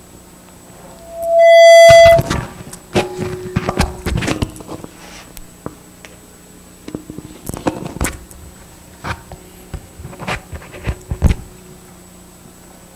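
A steady high-pitched tone that swells quickly to very loud, holds for about a second, then cuts off suddenly. Scattered clicks and knocks follow.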